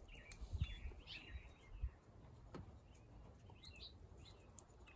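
Faint birds chirping, several short calls scattered throughout, with a few soft thumps and a click from small engine parts being handled in the first half.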